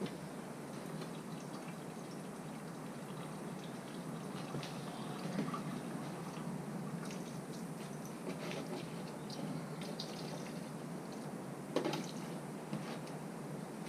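Antifreeze draining from the engine and trickling and dripping steadily into a catch pan. A single sharper clack comes near the end.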